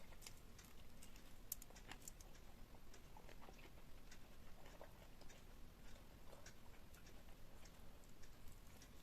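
Close-miked eating sounds: soft, wet chewing with many scattered small mouth clicks and smacks.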